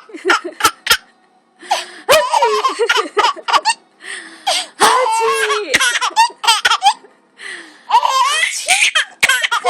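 A baby laughing hard, giggles and belly laughs coming in repeated runs with short pauses between them.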